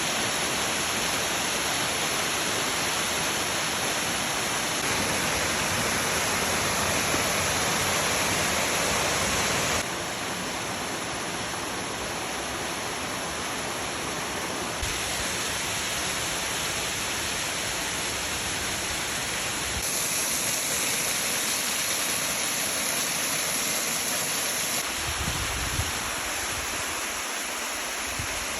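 Waterfalls rushing: a steady hiss of falling water. It changes in tone and level every five seconds or so as one fall gives way to another.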